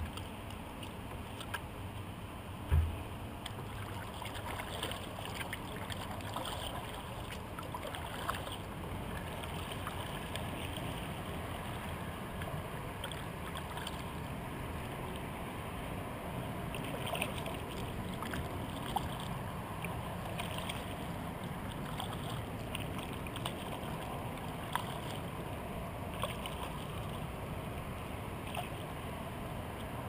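Kayak being paddled on open river water: steady water noise with light splashes and drips from the paddle, and a single low thump about three seconds in.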